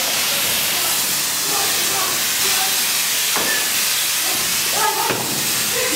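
A steady, loud hiss, with faint voices in the background and two short knocks, about three and a half and five seconds in.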